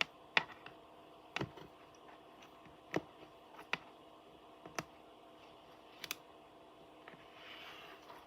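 Slime being played with by hand, giving sharp, irregular clicks and pops, one of them doubled about six seconds in, and a soft rustle near the end.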